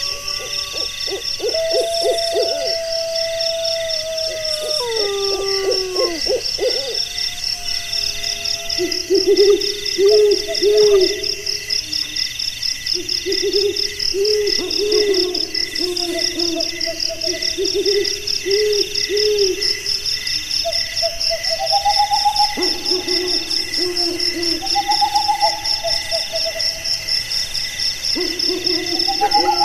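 A night chorus: insects trilling steadily in fast pulses throughout. Over it, lower animal calls come and go: wavering, gliding howls near the start, then runs of repeated low hoots that are the loudest sound.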